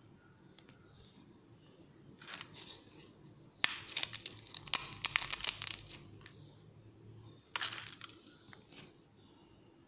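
Crisp fried potato wafers crackling and rustling as a hand stirs and crushes them on a plate, with the loudest, densest crackling from a little after three and a half seconds to about six seconds in and a shorter crackle near the end.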